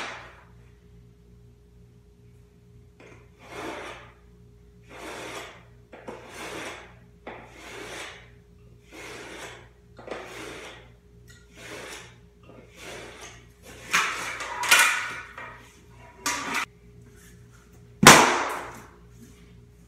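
Utility knife scoring a LifeProof vinyl floor plank along a speed square: about ten scratchy drawn strokes, roughly one a second. Louder handling noise follows, then one loud sharp knock near the end.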